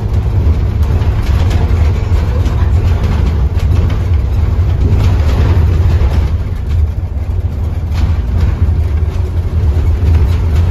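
Scania OmniCity double-decker bus's five-cylinder diesel engine running with a steady low drone, heard from inside the passenger saloon, with light rattles from the bodywork.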